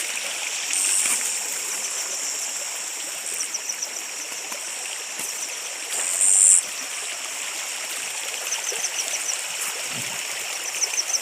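Steady rushing of a small stream flowing over its bed, now running at a normal level after flooding. Short, rapid high-pitched chirping trills come and go several times, and a brief loud high buzz sounds about six seconds in.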